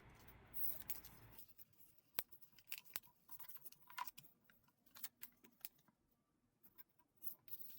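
Faint crinkling and creasing of a sheet of paper being folded by hand into a paper airplane, heard as scattered small clicks and ticks.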